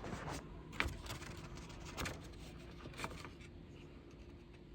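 Paper instruction manual being picked up and handled: about four light rustles and taps roughly a second apart.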